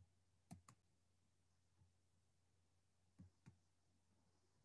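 Near silence with faint computer mouse clicks: a quick pair about half a second in and another pair a little after three seconds.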